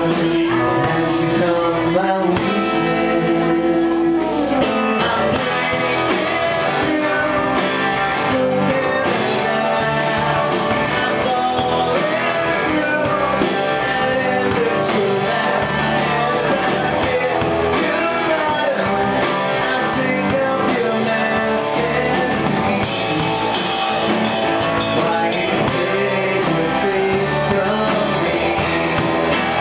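Live band playing a rock song: acoustic and electric guitars and a drum kit, with a male voice singing. A long held note rings through the first few seconds before the full band carries on.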